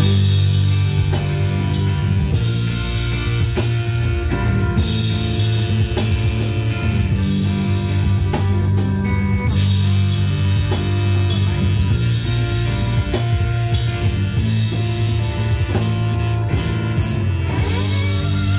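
Live blues band playing an instrumental passage: electric guitar and saxophone over drums and a steady bass line.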